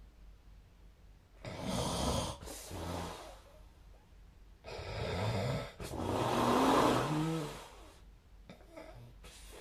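A sleeping person snoring: two long snores a few seconds apart, each in two parts, the second one longer and louder.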